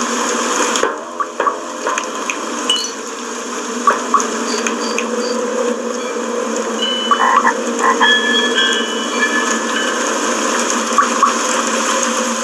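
Steady pouring and splashing water, as from watering cans sprinkling flowers, with a few short high bleeps over it.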